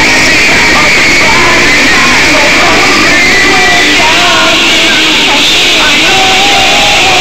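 A young woman singing a punk rock song loudly over a rock backing track.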